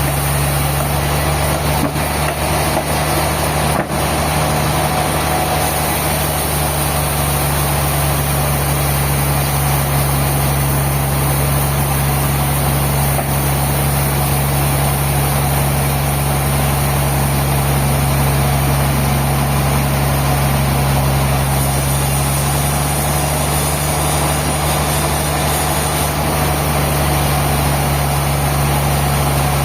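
Sawmill machinery engine running steadily, with a constant low hum and an even noisy layer above it.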